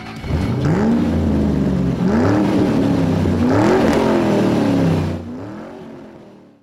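Car engine accelerating hard through the gears, its pitch climbing and dropping back about four times, then easing off and fading out near the end.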